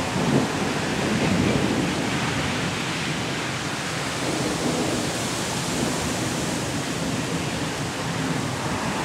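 Heavy rain pouring steadily in a thunderstorm, with a louder low rumble swelling and fading in the first two seconds.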